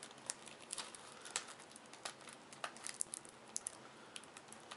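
Cellophane shrink-wrap on a trading-card pack box crinkling as fingers pick at it, trying to get it open: faint, irregular crackles and clicks.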